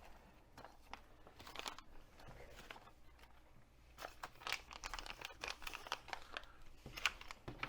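Packaging being handled, crinkling and rustling with scattered light clicks; sparse at first, busier from about four seconds in.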